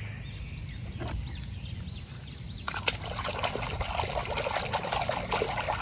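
Water splashing and trickling while a muddy plastic toy is rinsed and rubbed clean by hand, with small clicks and splashes that grow busier from about halfway.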